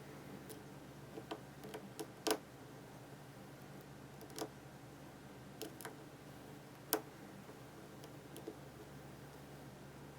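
Faint, irregular clicks and ticks of a lock pick working the pins of a Master Lock No. 532 padlock under light tension, during single-pin picking. The sharpest clicks come about two, four and seven seconds in.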